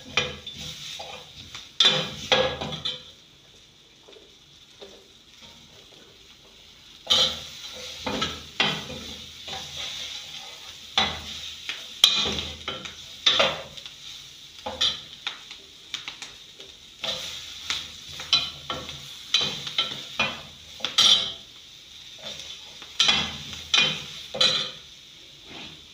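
A metal spoon stirring and scraping diced vegetables in a stainless steel frying pan, over a steady sizzle of frying. The strokes come in quick irregular runs, stopping for about four seconds near the start.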